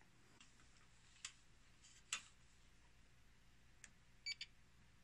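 Faint scattered clicks and taps from handling an inverter's circuit board and pressing multimeter test probes onto it, ending with two quick high-pitched tinks close together near the end.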